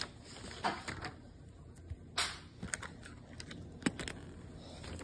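Plastic markers and pens clicking and rattling against each other as a hand rummages through a fabric pencil case full of them. There is a short rustle about two seconds in.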